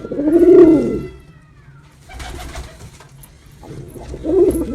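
Male pigeon cooing: a loud, low coo that rises and falls in pitch within the first second, then a second coo beginning near the end.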